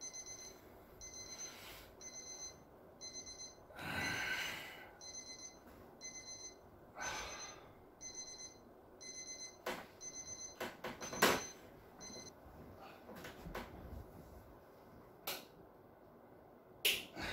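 An electronic wake-up alarm beeping in short high bursts about once a second, stopping about twelve seconds in. Over it come a few rustles and sharp knocks.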